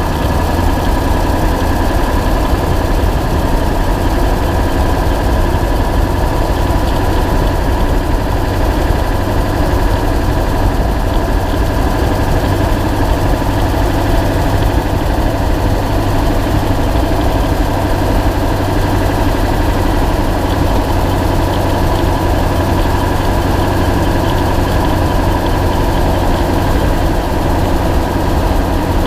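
2000 Ford F250's 7.3-litre Power Stroke turbodiesel V8 running steadily, picked up close from a camera mounted by the leaf spring, with the tick of an exhaust leak.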